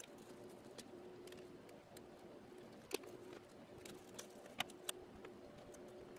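Faint light clicks and taps of thin laser-cut plywood case pieces being handled, pressed out and set down on a work mat, the sharpest about three seconds in and a few more close together near five seconds, over a faint steady hum.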